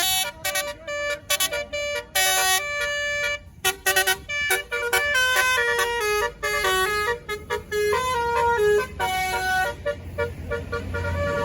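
A tour bus's telolet basuri musical air horn playing a tune, its notes stepping up and down in quick succession. A deep engine rumble swells near the end.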